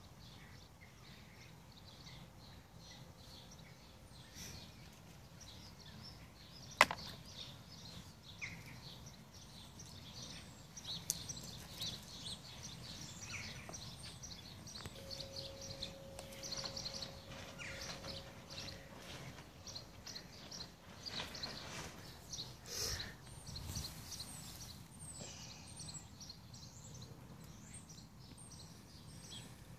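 Faint outdoor garden ambience with small birds chirping on and off, and one sharp click about seven seconds in.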